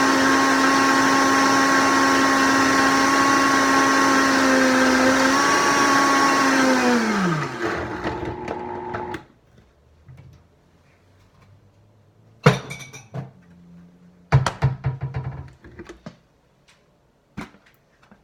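Countertop blender motor running steadily while blending a smoothie, then switched off, its whine falling in pitch as it winds down about seven seconds in. A few sharp knocks and clatters follow in the second half.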